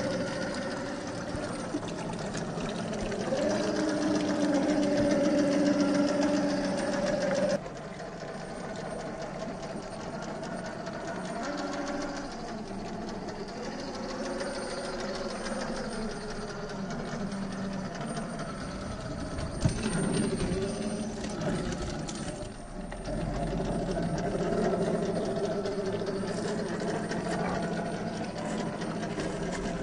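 Scale RC rock crawler's electric motor and geared drivetrain whining at crawling speed, the pitch shifting with the throttle. The sound changes abruptly about seven and a half seconds in and again near twenty-three seconds.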